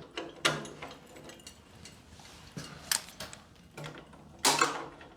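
Several separate sharp clicks and knocks of small hard objects being handled, at irregular intervals, the loudest about four and a half seconds in.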